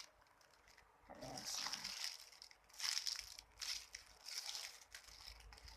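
Faint rustling and crinkling from squishy toys being handled, in about three short bursts.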